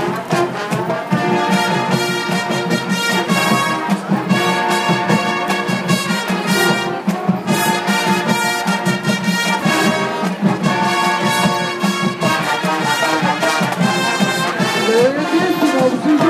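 High school marching band playing: brass horns holding loud chords that change every second or two, over a steady drum pulse.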